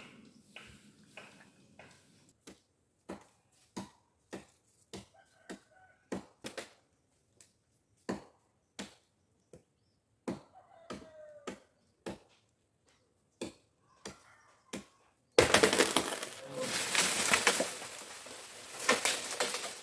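Wood being chopped: irregular sharp knocks, one every half second to a second. About 15 seconds in, a sudden loud noise takes over.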